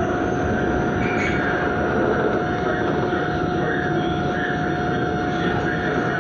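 Subway car running at steady speed: a constant rumble of wheels on rail with a steady high whine held throughout.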